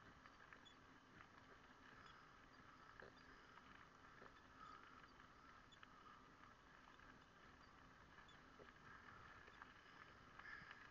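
Near silence: a faint steady hiss with scattered small ticks and clicks from a bicycle rolling along a gravel trail, a little busier near the end.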